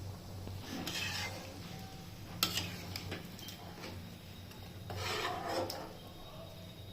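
A utensil scraping and rubbing against a cooking pot, in two stretches, with a sharp clink between them.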